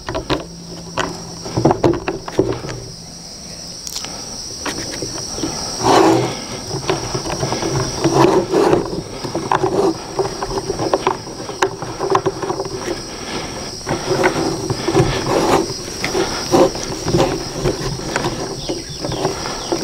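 Irregular plastic clicks, knocks and rattles of hands fitting the search coil's bracket onto the lower shaft of a SUFFLA metal detector and working its screw-and-knob fastener, over a steady high drone of insects.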